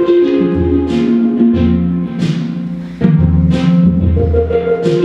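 Loud music with a heavy beat: a deep bass line changing notes every second or so, under regular cymbal-like hits.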